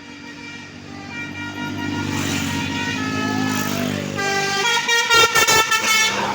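Bus sounding a Basuri telolet horn, a multi-tone musical horn playing a tune of changing notes over its engine. The engine grows louder through the first half, and about three-quarters of the way in the horn becomes loudest, sounding in quick pulsing notes.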